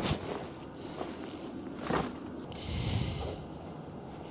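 A person shifting about in a truck driver's seat: a few soft knocks, then a rustling swish of clothing or fabric about three seconds in.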